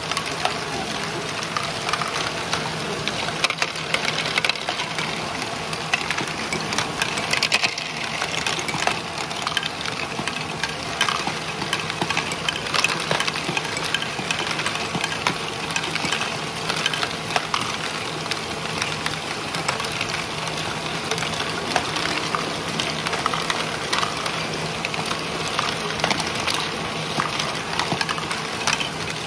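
LEGO Great Ball Contraption modules running together: a steady hum of small electric motors under a constant clatter of plastic balls and moving LEGO parts, with many small clicks and ticks.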